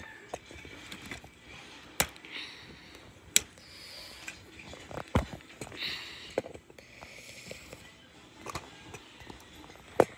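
Handling noise from a phone camera being moved and propped up: rustling, with a handful of sharp knocks and clicks as it is bumped and set against something, the loudest just before the end.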